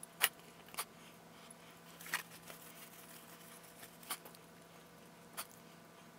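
Small metal parts of an automatic transmission clutch assembly clicking and tapping as they are taken apart by hand: about five separate sharp clicks, over a faint steady hum.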